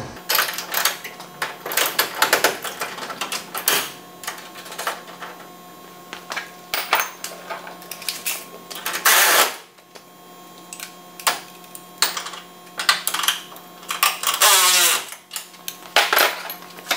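Hand tools clicking and clinking on steel suspension parts as a coilover shock is bolted into a car's front suspension, with runs of quick ratchet-wrench clicks. A steady low hum runs underneath.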